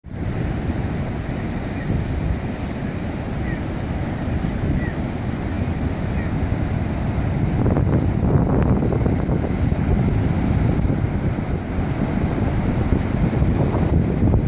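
Ocean surf breaking and washing up a rocky sand beach, with wind buffeting the microphone. The surf swells louder about halfway through.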